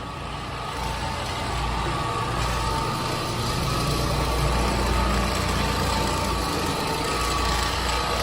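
Floor-cleaning machine running steadily: a constant motor hum with a thin whine that grows clearer partway through.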